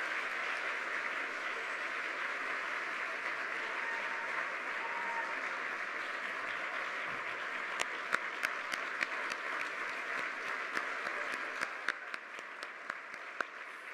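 Audience applauding, with individual sharp claps standing out in the second half and the applause thinning near the end.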